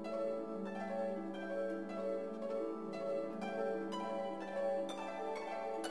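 Background music: plucked-string notes falling about twice a second over a held low note.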